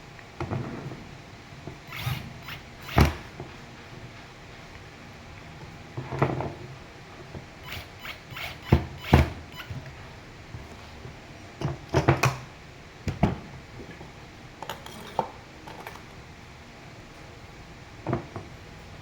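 Parts of an electric fan being handled and fitted together: scattered sharp clicks and knocks at irregular intervals, over a faint steady hum.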